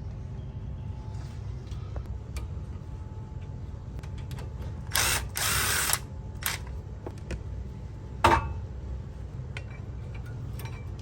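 Tools working on a car's wheel assembly: scattered small metal clicks, a loud burst of about a second midway, and a single sharp metallic clank a few seconds later, over a steady low hum.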